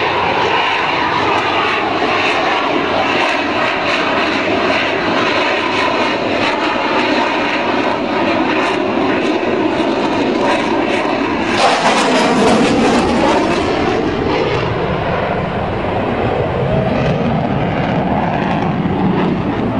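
Jet aircraft flying low past at speed: loud, continuous jet noise. About twelve seconds in, a closer, louder pass brings a sudden hiss, and then the noise drops in pitch as the jet goes by.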